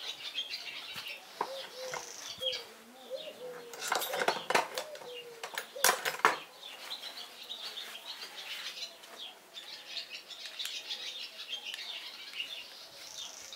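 Steel hand tools clinking against each other on a workbench, a handful of sharp clinks about four to six seconds in, while small birds chirp throughout.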